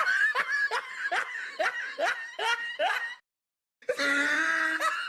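Laughing in a run of short 'ha' bursts, each falling in pitch, about two a second. The laughing breaks off for about half a second past the middle, then a drawn-out vocal sound and more laughing follow near the end.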